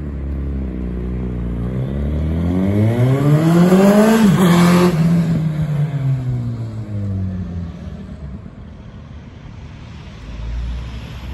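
Suzuki B-King's inline-four with Yoshimura end cans accelerating hard on the road, its pitch rising to a loud peak about four seconds in. The pitch then falls and the sound fades as the bike passes and rides away.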